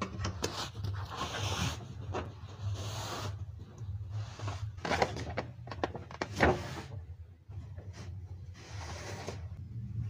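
Bed sheets rustling and swishing as they are pulled off and spread over a mattress, in several separate swishes, with a couple of sharper knocks from handling the bed about halfway through.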